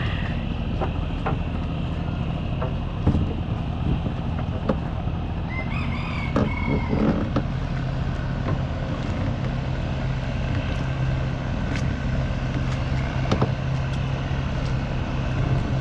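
Small boat engine running steadily with a low drone, with scattered knocks. A rooster crows once in the background about six seconds in.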